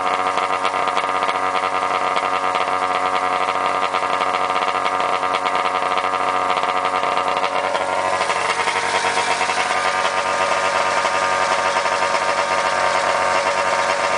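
Arctic Cat ZR 580 snowmobile's two-stroke twin engine running steadily at idle, its note shifting slightly about eight seconds in.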